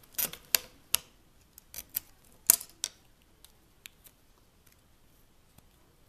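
Irregular sharp clicks and taps of a utility knife and a duct-taped plastic switch plate against a stone countertop, as duct tape on the plate is trimmed and the knife is put down. The loudest tap comes about two and a half seconds in, then only faint ticks.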